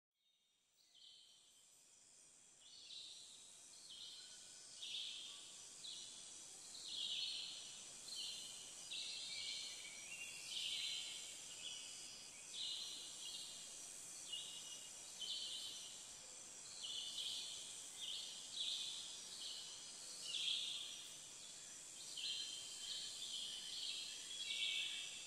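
Faint nature sound bed of chirping insects and birds, fading in over the first few seconds. A steady high-pitched drone runs under repeated chirping pulses about once a second.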